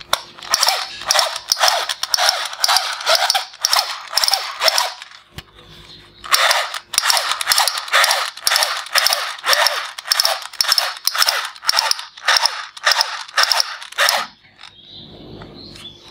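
Plastic toy M16-style rifle making its shooting sound as the trigger is held: a fast, even string of shots, about three a second. It pauses briefly about five seconds in, runs again, and stops about two seconds before the end.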